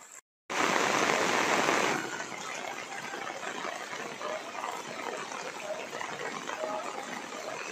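Rain falling and water running on wet pavement: a louder rush for the first second or two, then a steady hiss.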